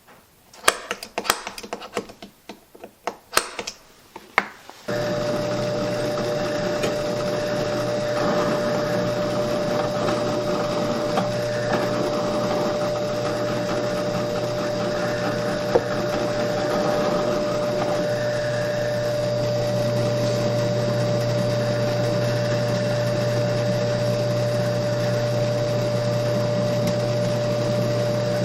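A run of sharp metallic clanks and taps, then about five seconds in a steady motor whine with one constant tone sets in abruptly and runs on without change.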